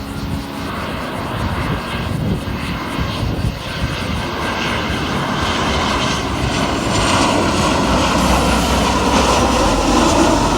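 Airplane engine roar from a plane passing low near the runway, growing steadily louder and loudest near the end.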